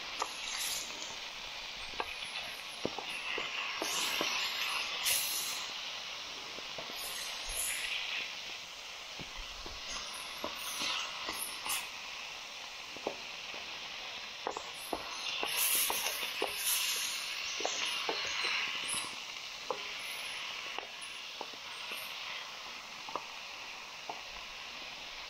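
Meat sizzling in a frying pan over a campfire, stirred with a spatula, with scattered sharp clicks and a few louder stretches of stirring.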